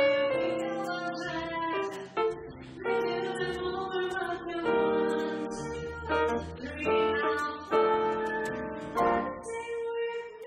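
A female jazz vocalist singing into a microphone in phrases with short breaks, backed live by a small jazz band of electric guitar, upright bass and drums.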